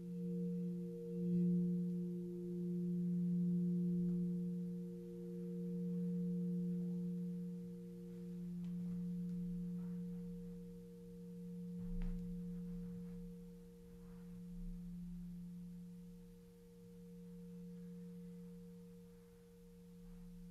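Crystal singing bowl ringing a low, pure sustained tone with a slow wavering pulse, gradually fading as it rings out.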